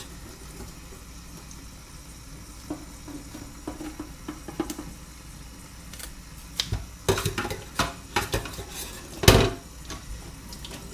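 Kitchen knife chopping and knocking on a cutting board as the head and tail are cut off a fish: scattered knocks, a quick run of them about seven seconds in, and the loudest single chop about nine seconds in.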